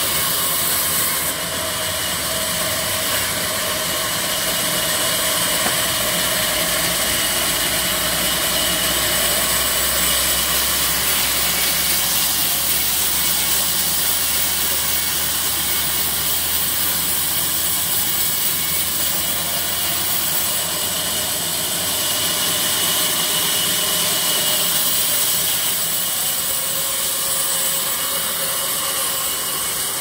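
Sawmill circular saw running steadily, a loud, even machine drone with no breaks.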